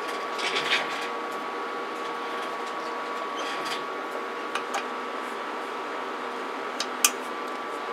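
Steady whir of cooling fans with a faint hum from the electronics on a radio test bench. A few light clicks and knocks of equipment being handled break in, the sharpest about seven seconds in.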